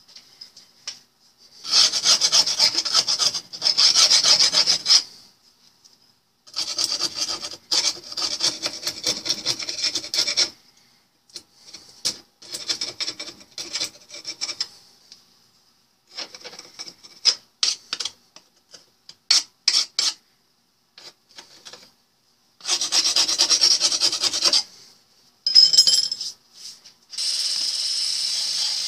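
Rust being scraped off a steel lock case by hand with a chisel-like blade, in runs of rapid rasping strokes a few seconds long with clicks and pauses between them. Near the end a rotary wire brush starts up and runs steadily against the metal.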